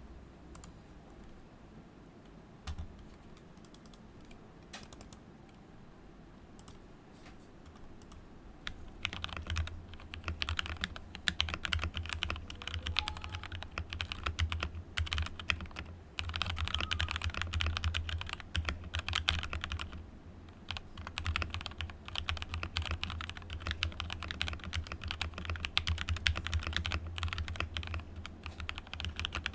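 Mechanical keyboard with stock JWK Lavender linear switches (full nylon housing, POM stem, 65 g springs) in a plateless BM60 Poker build, being typed on. Scattered single keystrokes come first, then fast continuous typing from about nine seconds in, with a brief lull about two-thirds of the way through.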